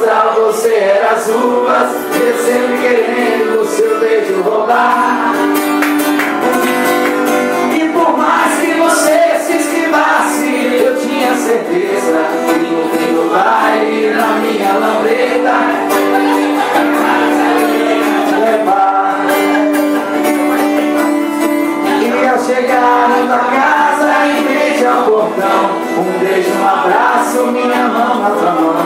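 A small group singing together to an acoustic guitar, several voices over the guitar's steady accompaniment.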